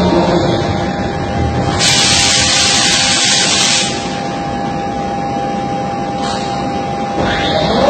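Machinery running with a steady high hum, and a burst of hissing about two seconds in that lasts about two seconds.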